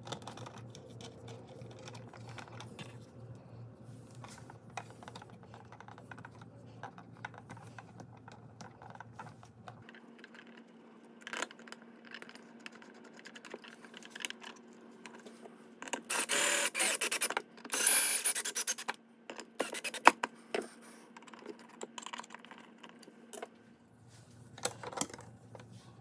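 Hands handling a wall receptacle's screws and mounting strap against tile: faint scratching and small clicks, with two louder scrapes of about a second each a little past halfway.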